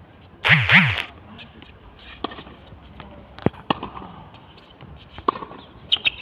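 Tennis serve and rally on an outdoor hard court: a loud burst about half a second in as the near player hits the serve, then sharp pops of racket strikes and ball bounces about once a second.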